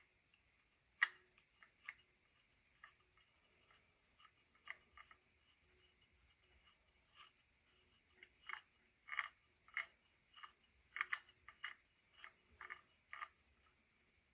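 Small sharp metal clicks and taps of a hand tool on a screw as the last brake screw is threaded into the e-bike wheel hub and tightened. The clicks are sparse at first and come several to the second in the last few seconds.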